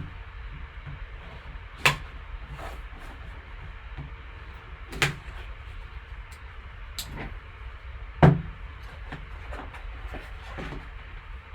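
Handling noises from card packaging on a table: a few sharp knocks and clicks, the three loudest about three seconds apart, with softer taps between, over a low steady hum.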